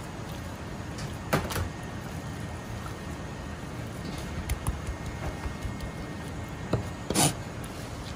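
Chinese cleaver cutting raw chicken thigh on a plastic cutting board. A few sharp knocks of the blade against the board, the loudest about seven seconds in, over steady background noise.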